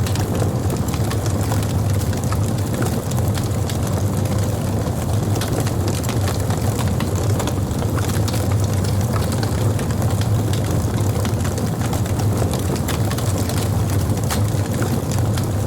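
Wood burning on a campfire: a steady low roar of the flames with scattered sharp crackles and pops from the burning wood.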